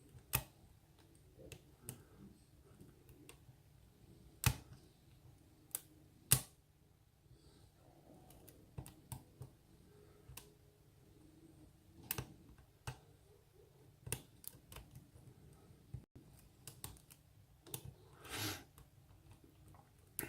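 Lock pick and tension wrench working the pins of a pin-tumbler lock: scattered small clicks and taps, three louder ones in the first seven seconds, and a short rustle near the end.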